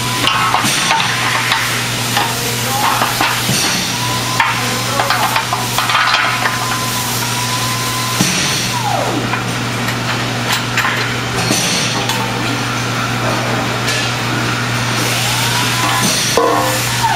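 Aluminium platform beam sections and pins knocking and clanking as they are handled and fitted together on a concrete floor, over a steady low workshop hum. A few high tones slide down in pitch now and then.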